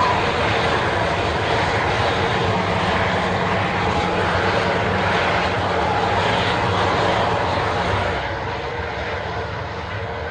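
Four-engine jet airliner's turbofans running at a steady idle: an even, continuous roar with a low hum underneath, easing a little quieter near the end.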